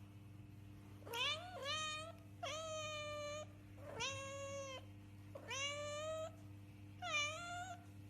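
A cat meowing six times in a row, some meows short and some drawn out to about a second, over a steady low hum.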